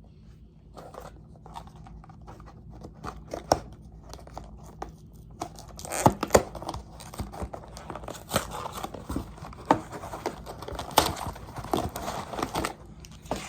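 Crinkly plastic wrapper of a salted caramel granola square being torn open and handled, with many sharp crackles that get busier about halfway through.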